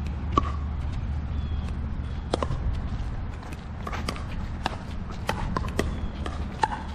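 Pickleball rally: about ten sharp pops of paddles striking the hard plastic ball and the ball bouncing on the court, coming at uneven intervals over a steady low rumble.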